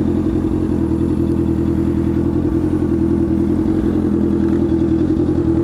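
Honda CB650F inline-four engine idling steadily through a full Jeskap GP2R 4-into-1 aftermarket exhaust.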